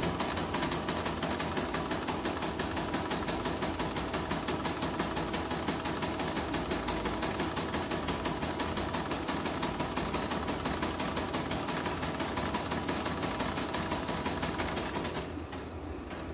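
CNY portable computerized embroidery machine, its covers off, stitching a test design: a rapid, even clatter of needle strokes over the motor's steady hum. It stops about a second before the end.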